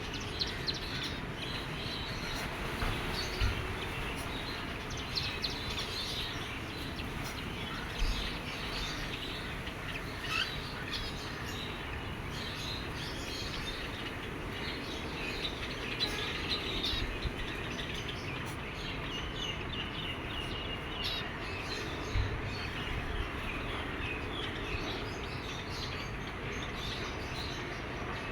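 Ten-day-old cockatiel chick chirping in many short, high calls over a steady background hiss, with a few soft thumps.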